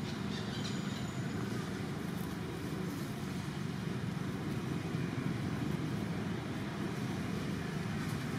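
Steady low rumbling background noise, even throughout, with no distinct calls or knocks standing out.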